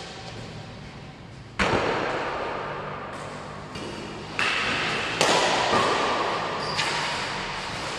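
Badminton rackets striking a shuttlecock in a doubles rally: about five sharp hits a second or so apart, each ringing out in the echoing hall.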